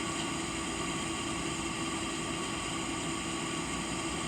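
Steady mechanical hum with a few steady tones over a background hiss.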